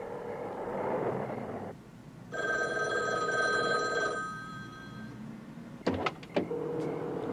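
Payphone ringing once, a trilling ring of about two seconds beginning a couple of seconds in, over a steady low tone. A few sharp clicks follow about six seconds in.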